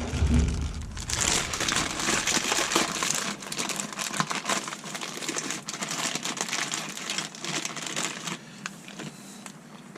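Plastic packaging crinkling and rustling with many small clicks, as a new part is handled out of its wrapping; busiest in the first few seconds, then thinning out.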